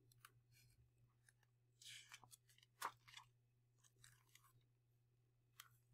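Near silence, with a few faint rustles and clicks from a hardcover picture book's pages being turned and handled, mostly around two to three seconds in.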